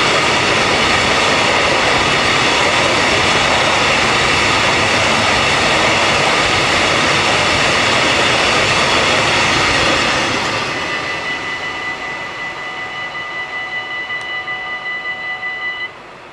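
Freight train of tank wagons rolling past, a loud steady rumble and rattle that fades about two-thirds of the way through. Level-crossing bells then ring on alone with a quick, even pulse and cut off suddenly near the end as the crossing clears.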